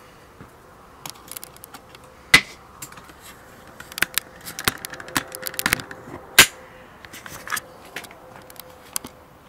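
Handling noise of small clicks and clinks, with two louder sharp snaps, the first about two seconds in and the second about four seconds later.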